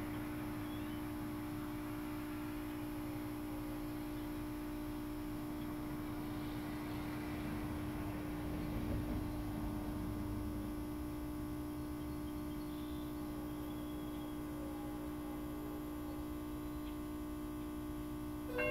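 Steady electrical hum of the signal equipment in a railroad grade crossing case, with one strong steady tone and a faint low rumble. Right at the end the crossing's warning bell starts to ring: the grade crossing predictor has activated the warning for an approaching train.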